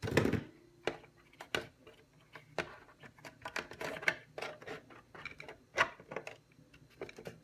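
Handling noise of a plastic RC-car body shell being set onto its chassis and pressed into place: a loud rustle and clatter at the start, then scattered light clicks and taps.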